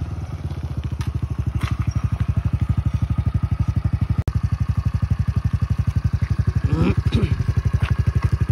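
Honda CRF110F's small single-cylinder four-stroke engine idling through a Pro Circuit T-6 aftermarket exhaust, an even, rapid popping pulse that settles in within the first second as the bike comes to a stop.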